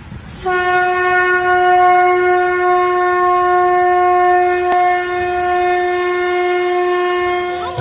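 Conch shell (shankh) blown in one long, steady note, starting about half a second in and held for about seven seconds before stopping near the end.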